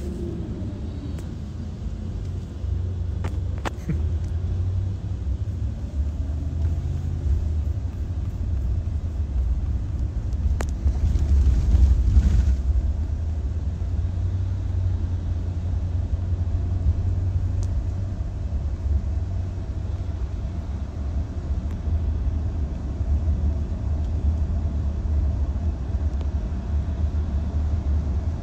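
Low, steady rumble of a moving car heard from inside its cabin, growing louder for a moment about halfway through.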